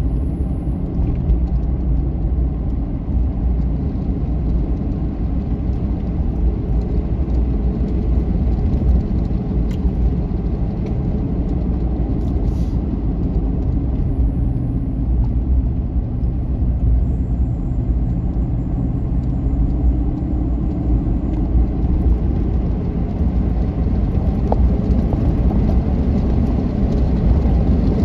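Steady low rumble of a car driving along a road, heard from inside the cabin: engine and tyre noise without any sharp changes.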